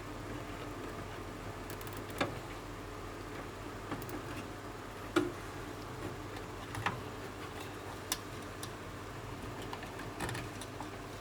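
Scattered sharp clicks and light knocks of power cables being handled and fastened with a zip tie inside an old desktop computer case, about six in all, over a steady low hum.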